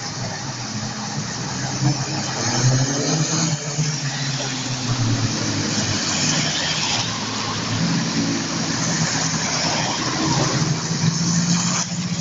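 Classic cars driving slowly past one after another on a wet road, their engines running at low revs and swelling as each one goes by, over a steady hiss of tyres on wet asphalt.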